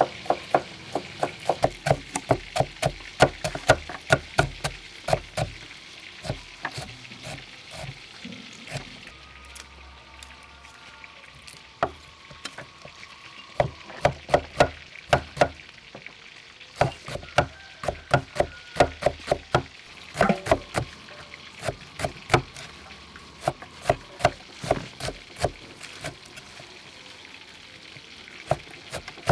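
A broad kitchen knife chopping soft leafy greens on a thick round wooden chopping board: quick, sharp taps, about three or four a second, in runs broken by short pauses.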